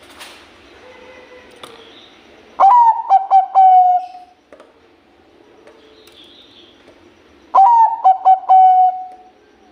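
Zebra dove (perkutut, Bangkok-bred line) singing its coo song twice. Each phrase is a quick run of short, clipped coos ending in one long held note.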